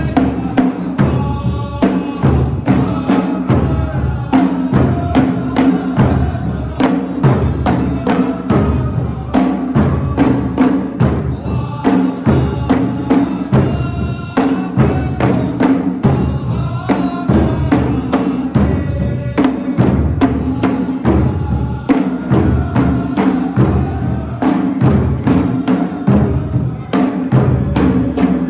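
Gulf folk group singing in chorus over a quick, steady beat of hand drums.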